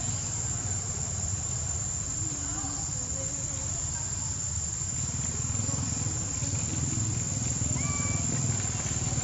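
Insects shrilling in one unbroken high-pitched tone over a low background rumble, with a brief faint chirp about eight seconds in.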